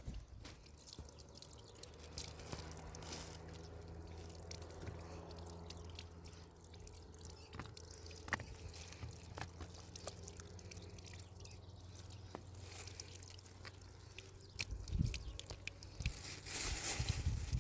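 Water dripping in scattered drops and small clicks over a steady low hum, with a louder splashing or rustling stretch near the end.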